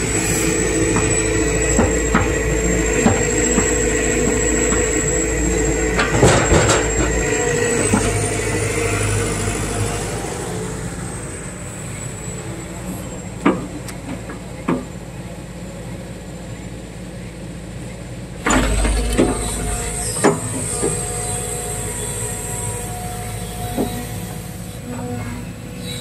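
Compact excavator's diesel engine and hydraulics working as it grabs and moves logs with its bucket and thumb, running harder at times and easing off in between. Now and then come sharp knocks of the logs striking each other and the steel.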